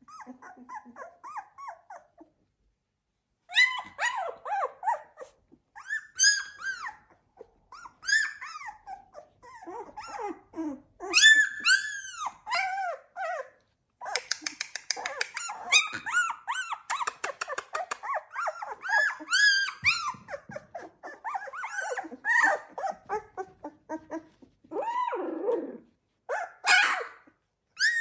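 A litter of 16-day-old chocolate Labrador retriever puppies yipping and squeaking as they play together: many short, high calls. There are a few faint calls at first, a short lull, and then an almost unbroken run of calls from a few seconds in.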